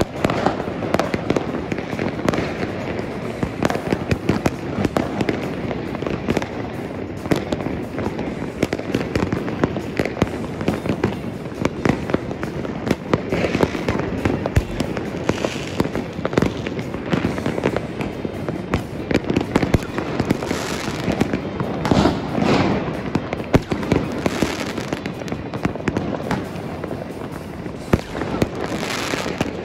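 Many fireworks going off at once: a continuous din of overlapping bangs and crackles, with a few louder hissing, crackling bursts in the second half.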